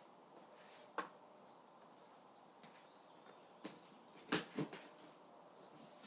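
A sharp click about a second in, then a few quick knocks a little past the middle, from hands handling the table saw's cardboard shipping box, over a faint steady hiss.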